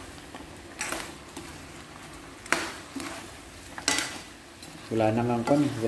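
A spatula stirring pork adobo in a pan, knocking and scraping against the pan three times, over a soft sizzle of the pork cooking in its oily sauce.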